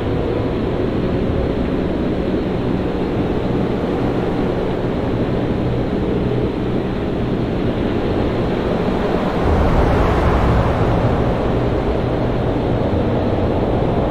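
Storm-at-sea ambience: a continuous wash of wind and breaking waves with a deep rumble underneath. About two-thirds of the way in, a heavier low rumble swells up and eases off again.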